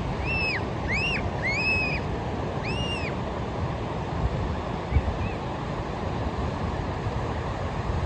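Ocean surf washing steadily onto a beach. Over it, four short high calls, each rising then falling in pitch, come in the first three seconds, and a soft low thump about five seconds in.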